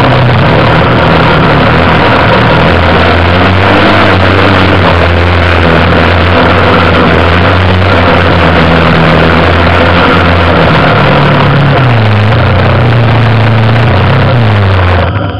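A vehicle's engine running loud and steady while driving, with heavy rumbling noise on top. Its pitch rises and falls back about twelve seconds in, and it cuts off near the end.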